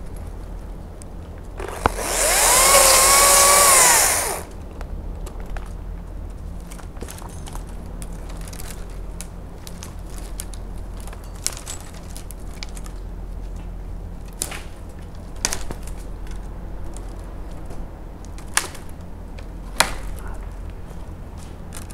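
Makita top-handle battery chainsaw making one short cut about two seconds in, its electric motor whine rising, holding and dropping away over about two and a half seconds. The rest is scattered light knocks and clicks over a steady low rumble.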